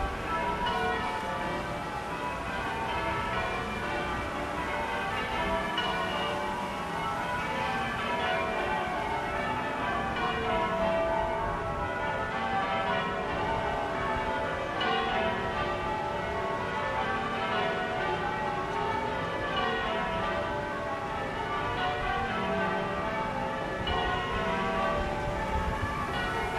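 Church bells ringing, many bells struck one after another in an unbroken run, their tones overlapping and ringing on.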